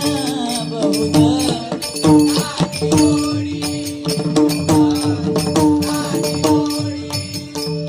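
Bhajan music: a held drone with a bending melodic line over it, driven by drum strokes and jingling metal cymbals keeping the beat.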